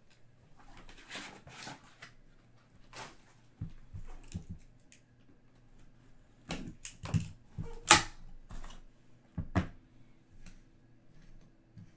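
Hands unboxing a cardboard trading card box: breaking its seal and pulling out the inner box. It sounds as rustling and scraping, with a run of knocks and taps in the second half and the sharpest click about eight seconds in.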